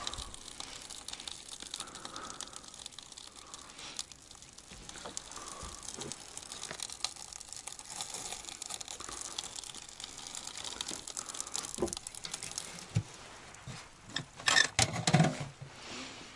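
A foil-wrapped stuffed pumpkin sizzling in the firebox of a small metal pipe stove over a wood fire, a steady hiss with scattered crackles. Near the end comes a louder clatter as the stove's metal door is shut.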